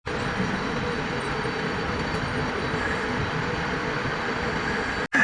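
Steady mechanical running noise from a lathe, continuous and even. It cuts out for an instant near the end.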